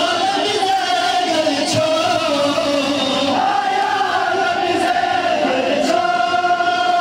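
A large group of men chanting a noha, a mourning lament, together in long held, slowly wavering lines.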